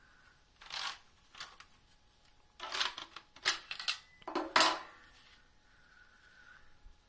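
Handling noise from the sheet-metal chassis of a Sony CDX-M630 car CD player as it is turned over and set down on a wooden table: a string of irregular knocks and rattles, loudest about four and a half seconds in.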